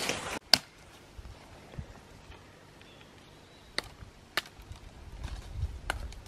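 Cutting a wooden Y stick: one sharp chop about half a second in, then a few lighter knocks and taps on the wood.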